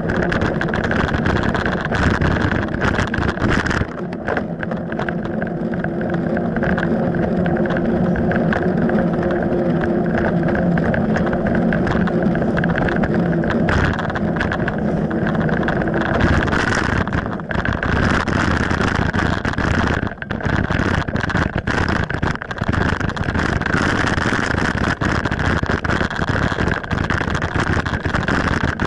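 Mountain bike ridden at speed, heard as steady wind rush and rolling and rattling noise on the bike-mounted camera's microphone. The sound changes about halfway through: the low hum fades and the rush becomes more even.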